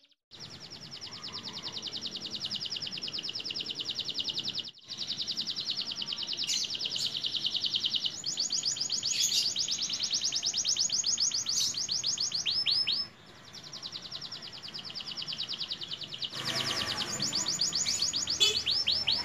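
Young canary just come into its full song, singing long, fast, high trills of rapidly repeated notes, switching from one trill to the next, with short breaks about five and thirteen seconds in.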